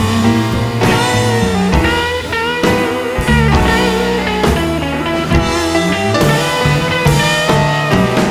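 Rock music led by guitar, with bending notes, and drums keeping a steady beat about once a second.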